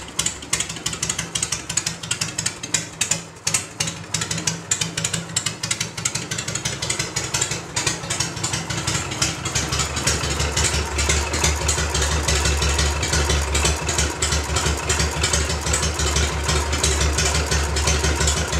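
Harley-Davidson Shovelhead V-twin idling, with a fast clatter and rattle from the exposed 1½-inch BDL open belt primary drive and clutch; the owner is unsure whether this noise is normal or whether the idle is set too low and is straining the engine. The sound gets louder and deeper about halfway through.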